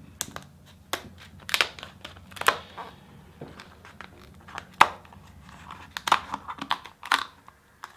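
Boiled lobster shell being cracked and torn open: a run of irregular sharp cracks, snaps and crinkling, with the loudest snap about five seconds in.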